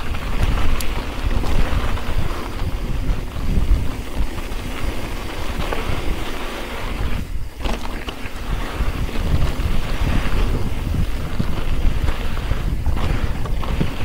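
Wind rushing over the action camera's microphone as a mountain bike descends a dirt trail at speed, with tyre noise on the dirt and the odd rattle or knock from the bike over bumps.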